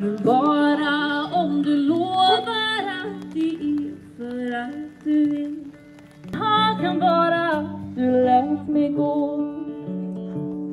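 A woman singing live to her own guitar: two sung phrases, the second starting about six seconds in, with the guitar chords carrying on between and after them.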